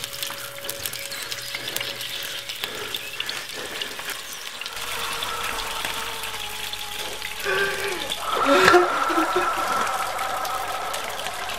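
Meat frying in a pan: a steady crackling sizzle full of quick pops. About eight seconds in it swells into a louder squeaky burst with short pitched notes.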